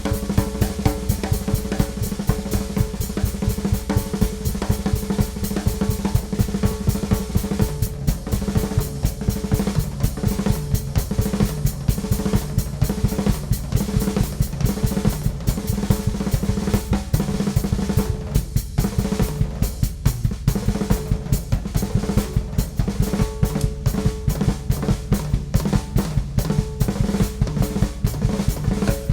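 Ludwig Classic Maple drum kit played continuously, a busy run of rapid strokes on the maple toms, Supraphonic snare and bass drum under cymbals and hi-hat, the toms ringing on.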